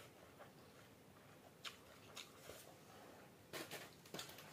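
Faint sounds of eating rice by hand: chewing and a few short soft clicks and smacks over an otherwise near-silent room.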